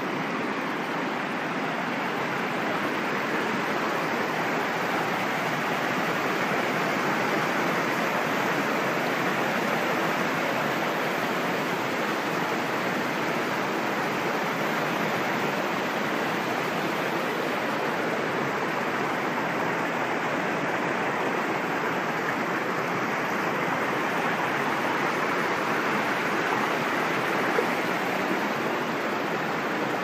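Mountain stream rushing over rocks, a steady rush of water swollen after heavy rain.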